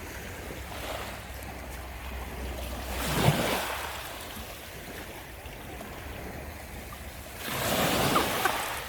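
Water splashing and lapping around a small boat, with two louder swishes, one about three seconds in and one near the end, over a steady low wind rumble on the microphone.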